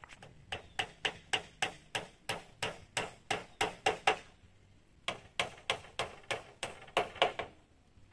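Quick, even blows of a hand tool on wood or bamboo, about three a second, in two runs with a pause of about a second between them.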